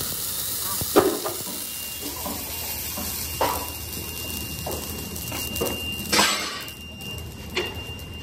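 Foundry floor around a ladle of molten metal: a steady hiss with sharp metal clanks and knocks every second or two, the loudest about a second in, from iron skimming bars and the ladle's carrying shank.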